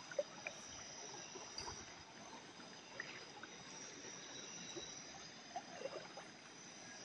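Faint stream water trickling, with small scattered splashes and ticks, over a steady high-pitched drone.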